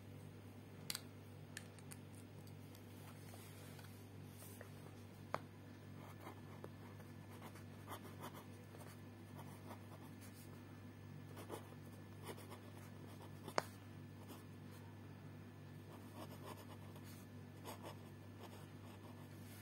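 Cello Butterflow ballpoint pen writing cursive on a ruled notebook page: faint scratching pen strokes, with a few sharp clicks over a steady low hum.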